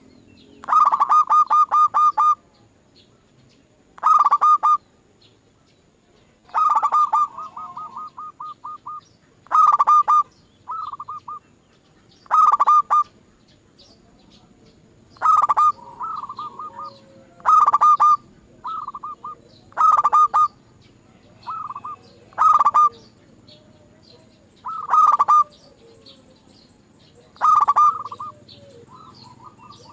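Zebra dove (perkutut) cooing: a rapid run of staccato notes, repeated about every two to three seconds, with fainter, shorter runs in between.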